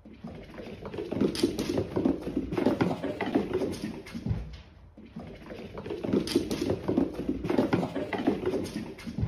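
Cats' paws pattering and thudding on a hard wooden floor as they run, a quick run of soft footfalls that eases off for a moment midway, then picks up again.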